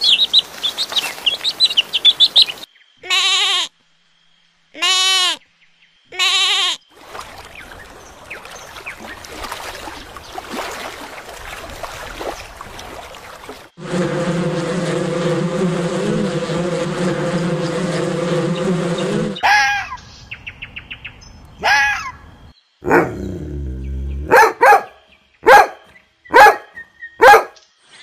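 A sequence of animal sounds. First, chicks peep rapidly, followed by three short drawn-out calls. Next, a honeybee colony buzzes, building to a loud steady hum about halfway. Last, red-crowned cranes give loud sharp calls, several in quick succession near the end.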